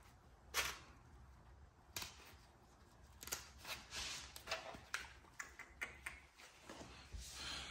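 Fresh banana leaf crinkling and rustling in the hands as it is folded and handled: scattered short crackles and light taps, the sharpest about half a second in.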